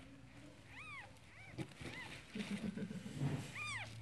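Newborn Siamese kitten mewing: about four short, high-pitched mews that rise and fall, the clearest about a second in and near the end.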